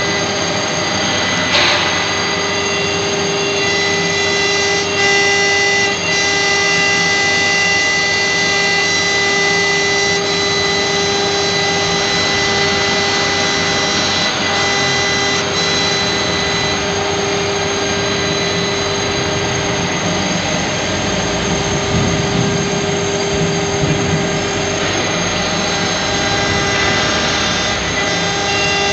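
High-speed spindle of a CNC router running steadily while its engraving bit cuts into a brass cylinder turned on a rotary axis. It gives a steady whine made of several held pitches over the grinding of the cut.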